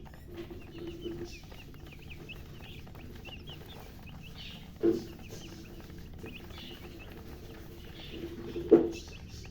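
Newly hatched chicks peeping in quick, high chirps, with two louder, deeper sounds about five and nine seconds in.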